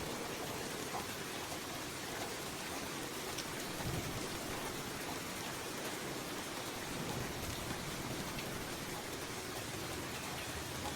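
Steady rain falling on surfaces, an even dense hiss of drops, with a brief low thud about four seconds in.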